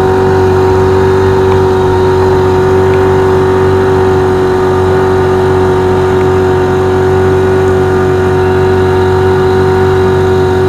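A sailboat's auxiliary engine running steadily under power at cruising speed, a constant loud hum with an unchanging pitch.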